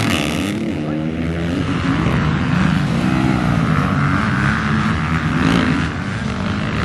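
Several motocross dirt bikes racing, their engines revving up and down in overlapping pitches as riders throttle over jumps and through corners.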